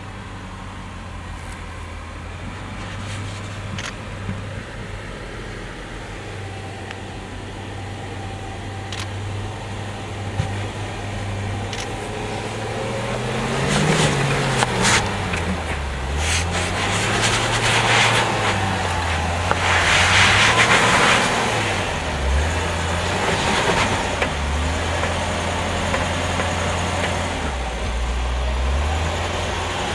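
2013 Range Rover's engine running at low speed as the vehicle crawls over rock ledges, its pitch rising and falling with the throttle. About halfway through, a louder rough crunching of the tyres on rock and grit joins it for several seconds.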